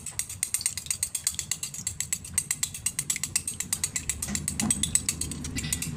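A fork beating raw egg in a glass bowl, clicking rapidly and evenly against the glass at about six strokes a second.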